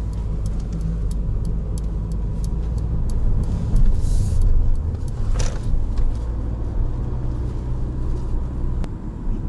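Interior sound of a Mercedes A-Class A180d on the move: the four-cylinder diesel engine and tyre-and-road noise as a steady low drone in the cabin. Faint light ticks run through it, and there is a short hiss about four seconds in.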